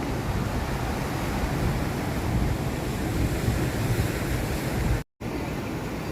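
Sea surf and wind blowing on the microphone, a steady rumbling wash with hiss above it. It cuts out for a moment about five seconds in, then comes back a little quieter.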